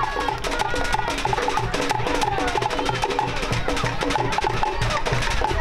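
Cook Islands drum music: a fast, even rattle of slit-log drums (pate) over a steady bass-drum beat.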